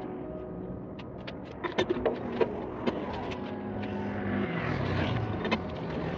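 Sharp metallic clinks and knocks of a long wheel brace on a truck's wheel nuts, several in the first three seconds and one more near the end, over the steady hum of a vehicle engine running, which swells a little past the middle.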